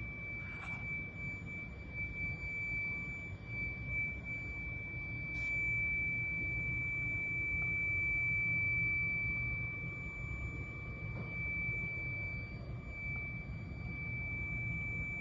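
A steady, high-pitched electrical whine holds one pitch over a low, even rumble of running industrial equipment, from a graphitization furnace plant under power.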